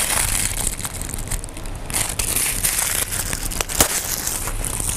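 White tissue paper crinkling, crackling and tearing as a small wrapped gift is pulled open by hand, with one sharper crackle just before four seconds in.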